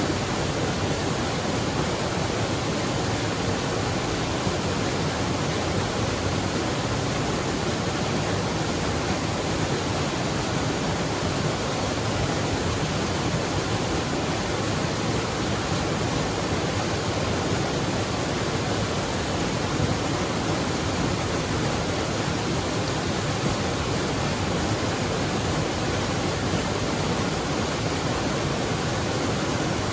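Waterfall rushing, a steady, unchanging roar of falling water.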